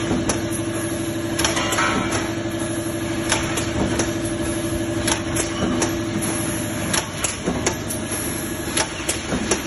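Power press line with a pneumatic strip feeder running: a sharp knock about every two seconds over a steady machine hum, with lighter clicks and rattles between. The hum drops away about seven seconds in.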